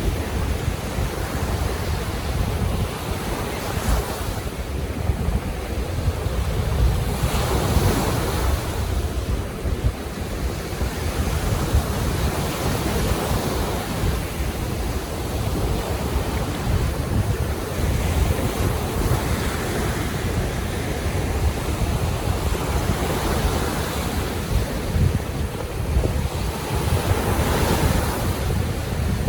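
Baltic Sea waves washing in, the rush of each wave swelling and fading every few seconds, over a steady low rumble of wind on the microphone.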